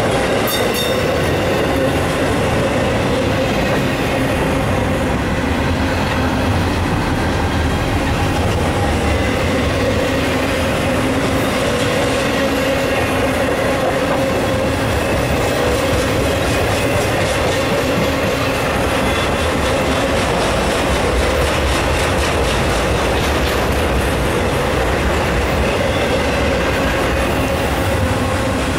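Intermodal freight cars carrying double-stacked containers and trailers rolling past: a steady rumble of steel wheels on rail, with a steady whining tone running through it.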